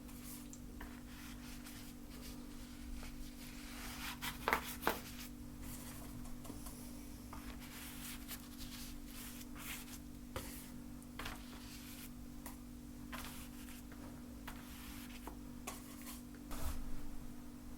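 Painting tools rubbing and scraping on a canvas in short strokes, with a few sharp taps about four and a half seconds in, over a steady low hum.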